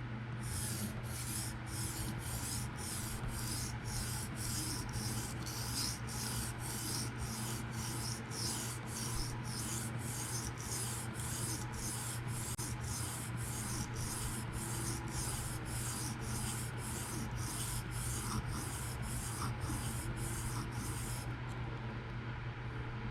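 PM60 steel knife blade drawn back and forth across a diamond sharpening stone in freehand strokes, a steady rasping at about two strokes a second that stops near the end. The strokes are grinding a fresh scratch pattern on the way to raising a burr.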